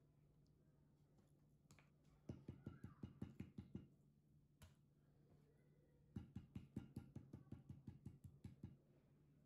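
A kitchen knife chopping through raw pork belly onto a wooden cutting board: two runs of quick taps, about six a second, the second longer than the first.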